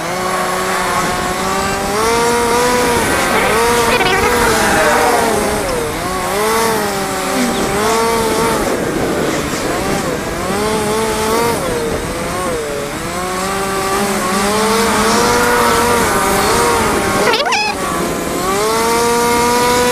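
Motorcycle engine running on the move, its pitch climbing as it accelerates and dropping back again, several times over, as the gears change or the throttle rolls off. Wind and road noise lie underneath, and a brief sharp noise sounds near the end.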